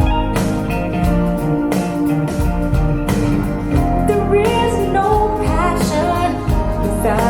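A song with guitar and a singing voice, played back through Focal Aria 906 bookshelf speakers. The first half is instrumental; the voice comes in about four seconds in and sings one long wavering line.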